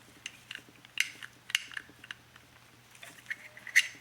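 Small steel parts of an AR-15 bolt carrier group clicking and ticking together as the bolt is seated and lined up in the bolt carrier, a scatter of short sharp metal clicks.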